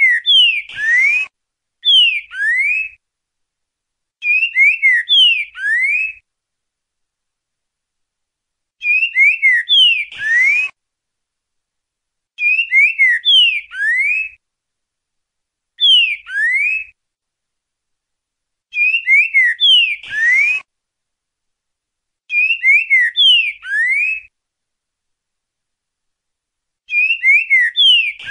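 Green-winged saltator (trinca-ferro) singing the 'boca mole ti-boi' song type: short phrases of clear, slurred whistles, repeated about every three seconds with silent pauses between.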